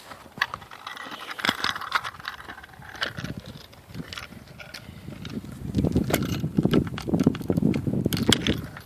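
Handling noise from a camera being fitted and locked onto its mount: scattered clicks, taps and scrapes, with heavier rumbling knocks in the second half.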